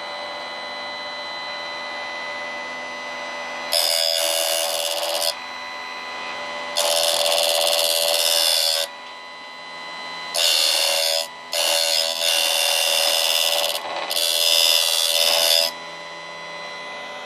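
Florabest FSG 85 B1 electric chain sharpener's grinding wheel spinning with a steady whine, lowered onto a chainsaw cutter tooth five times for loud grinding passes of one to two seconds each, squaring up the tooth's edge.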